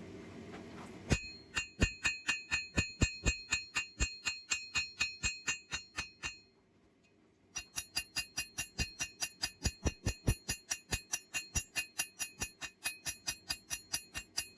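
Blacksmith's hammer striking steel on an anvil in two fast, even runs of about four blows a second, the anvil ringing at every blow, with a short pause between the runs.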